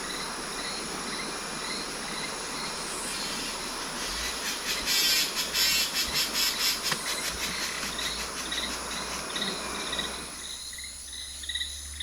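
Tropical forest insect chorus. A chirp repeats a few times a second over a steady high whine, and a louder, fast-pulsing buzz swells in the middle. A background hiss falls away near the end.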